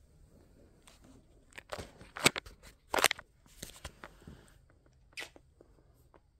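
Handling noise: rustling, scraping and clicking as a phone is moved about against fabric, a busy run of crackly scrapes with the loudest ones about two and three seconds in, dying away after about five seconds.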